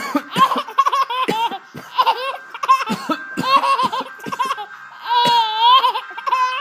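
Baby laughing hard in a string of short, high-pitched bursts, with one longer, wavering laugh about five seconds in.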